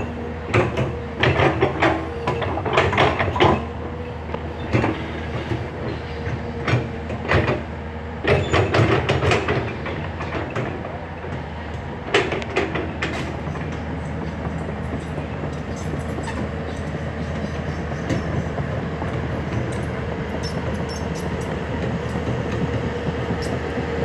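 Hyundai HX210S excavator at work: repeated metallic clanks and squeals of steel tracks and linkage during roughly the first dozen seconds, over a steady engine and hydraulic drone that then runs on evenly.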